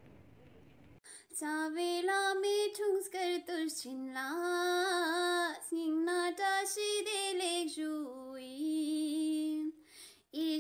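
A high female voice singing a slow devotional song with long held notes. It starts about a second in after faint room noise and breaks off briefly near the end.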